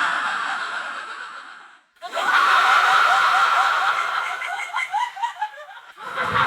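Crowd of people laughing together in separate bursts, each starting loud and tailing off. One laugh dies away, a new one breaks out about two seconds in and fades, and another starts near the end.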